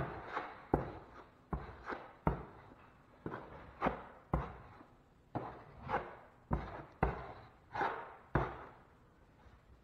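A 6-inch drywall knife scraping excess setting-type hot mud off a wall patch in short, hard strokes. Each stroke starts with a sharp tap of the blade on the wall, about one every half second to second, and the strokes stop about a second before the end.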